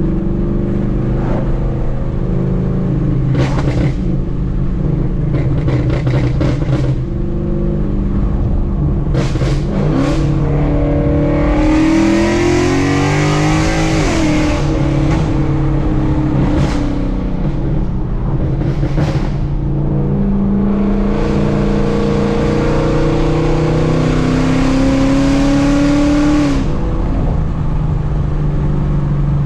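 Ford Mustang GT's Coyote 5.0 V8 on a burble tune, straight-piped through long-tube headers, an X-pipe and a muffler delete, heard from inside the cabin on the move. It runs loud and steady, and the revs climb twice, about a third of the way in and again from two-thirds in, each time dropping off abruptly. Brief sharp pops and cracks from the exhaust come in between.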